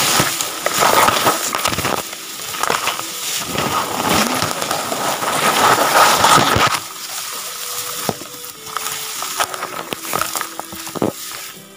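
Tall cogongrass (alang-alang) blades rustling and scraping against the camera and its microphone as someone pushes through the thick stand. The rustling is dense and loud for about the first seven seconds, then thins to lighter brushing with scattered crackles.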